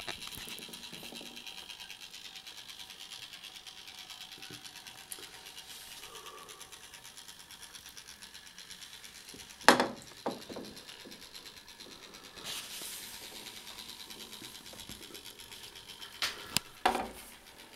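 Clockwork motor of an old Ives tin toy motor boat running with a fast, even whirr as its propeller turns in the water. A loud sharp knock comes about ten seconds in, and a few more near the end, as the tin hull bumps the side of the tub.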